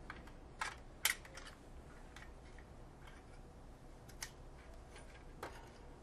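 Light clicks and taps of a 9-volt battery and its snap connector being handled in the plastic battery compartment of a smoke detector: about six short, sharp clicks spread through, the loudest about a second in.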